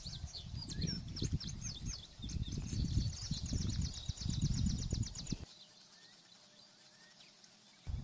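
A songbird singing a run of high chirps that ends in a fast trill. Under it is a louder, fluctuating low rumble of wind buffeting the microphone, which cuts off abruptly about two-thirds of the way through.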